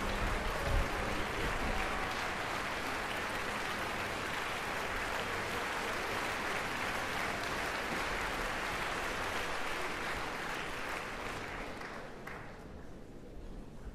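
Theatre audience applauding as the conductor takes the podium, a dense steady clapping that dies away near the end.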